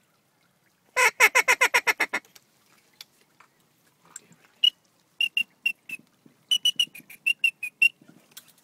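Duck calling to an incoming duck: a quick run of about ten quacks stepping down in pitch, a mallard-style comeback call, then a string of short, high whistled peeps, about three to four a second.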